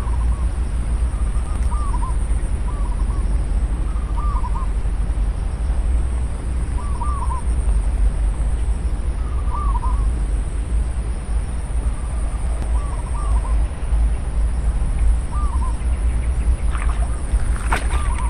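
A bird giving short, repeated calls, one every second or few, over a steady low rumble of wind on the microphone.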